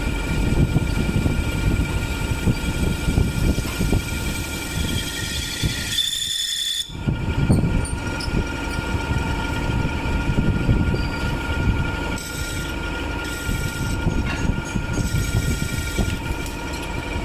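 A workshop machine running steadily, grinding metal off a motorcycle transmission part, with a steady high whine and a scraping, squealing noise. The sound breaks off briefly about six seconds in, then resumes.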